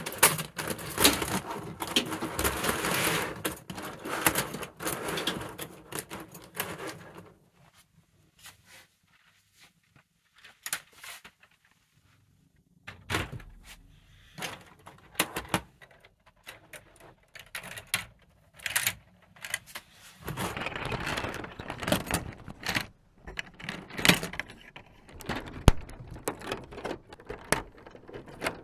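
Plastic LEGO Technic track links clattering and clicking as long track chains are handled, laid over the road wheels and snapped together. A dense rattle at first, a quiet stretch in the middle, then scattered clicks and another burst of clatter.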